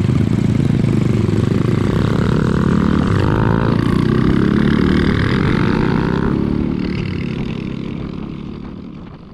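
Classic small motorcycles, Honda among them, pulling away and accelerating, their engines rising in pitch as they gather speed. The sound fades out over the last few seconds.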